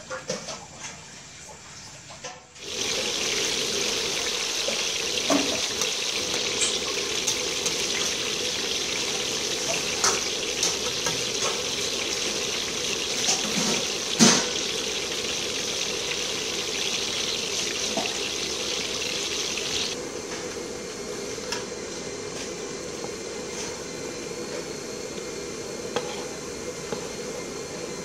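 Food sizzling as it deep-fries in hot oil in a wok. The sizzle starts suddenly about two and a half seconds in, runs with scattered sharp pops and spits, and eases slightly about two-thirds of the way through.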